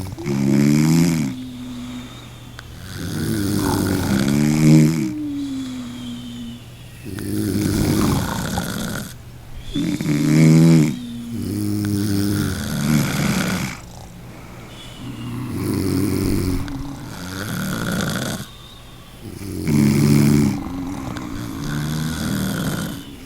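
A person snoring, one snoring breath swelling and fading about every three to four seconds; some breaths end in a drawn-out tone.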